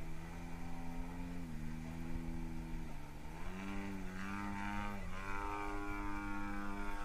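Propeller and motor of a small 3D aerobatic RC model airplane in flight, its pitch shifting with the throttle: a slight drop about a second and a half in, a rise a couple of seconds later, a brief dip, then a steady higher note.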